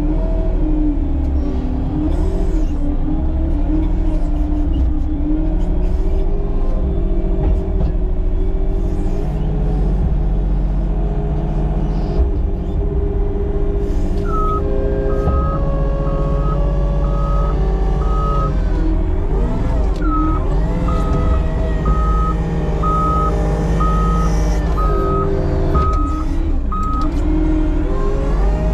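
Diesel engine of a construction machine running under load, its pitch rising and falling. About halfway in, a reversing alarm starts and keeps beeping at a steady pitch, roughly three beeps every two seconds, with one short break.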